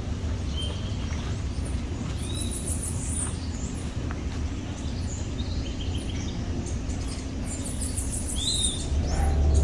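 Birds chirping, many short scattered calls over a steady low rumble that grows louder near the end.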